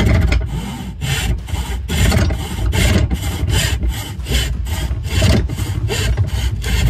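Hand backsaw cutting across the grain of a wooden board in steady back-and-forth strokes, about two a second, sawing down the side wall of a dado.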